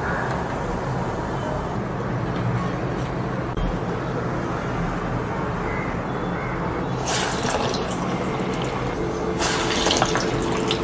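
Hot oil sizzling and bubbling as urad dal medu vadas deep-fry in a kadai. A louder hiss comes about seven seconds in and again near the end.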